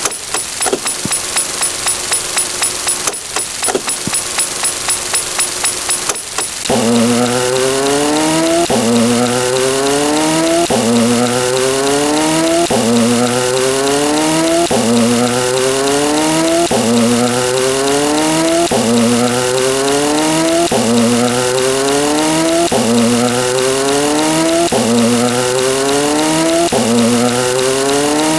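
A sound effect of a motor revving over and over: a pitched engine-like sound climbs and drops back about every second and a third. Before that, for the first six seconds or so, there is a rapid mechanical rattle at about seven beats a second.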